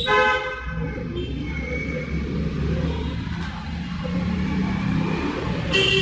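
Road traffic running steadily, with a vehicle horn honking for under a second at the start and briefly again near the end.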